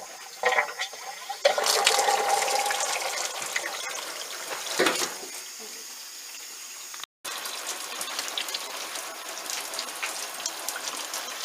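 Water pouring into the wash tub of a Giantex Costway twin-tub washing machine as it is filled, a steady rushing that breaks off briefly about seven seconds in.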